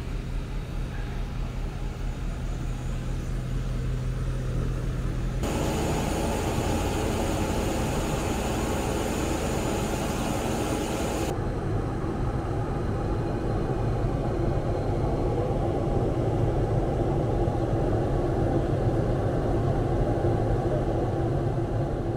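Jet airliner noise: first a steady engine hum on the apron. About five seconds in a loud hiss comes in and cuts off about six seconds later. Then the steady drone of the cabin in flight.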